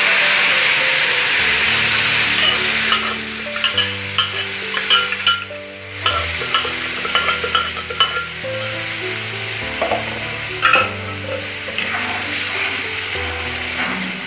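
Hot oil tempering (vaghar) with mustard seeds and cumin hissing loudly as boiled cowpeas and their water are poured in from the pressure cooker. After about three seconds the hiss dies down to a bubbling sizzle, and a metal ladle clinks and scrapes against the kadai as it stirs.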